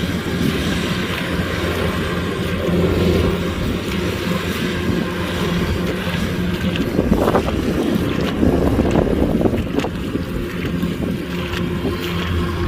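Kubota DC-105X combine harvester's diesel engine running steadily under load, with a rougher, crackling stretch in the middle.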